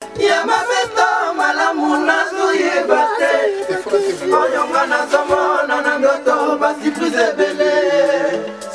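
Several voices singing together without instruments.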